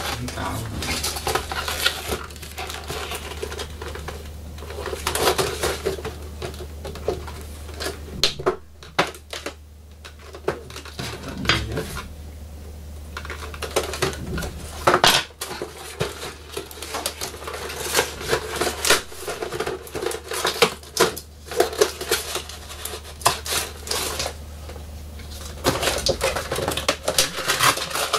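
Cardboard and plastic window-box packaging being handled and opened: irregular clicks, taps and scrapes as the box is turned over and its end worked at with a small cutting tool.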